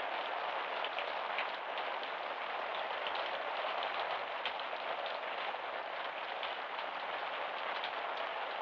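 Steady rain falling: an even hiss dotted with scattered drops ticking, heard on an old soundtrack with no top end.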